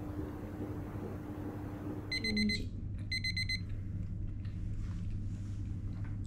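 Two short bursts of rapid, high electronic beeping in the style of a digital alarm clock, about two and three seconds in, over a steady low hum.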